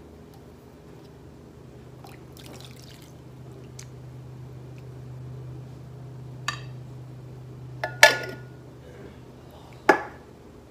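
Rinse liquid pouring and dripping from a coconut milk can into batter in a glass bowl. It is followed by sharp knocks of the can against the glass bowl, one, then two close together, then a last one near the end; the later ones are loudest.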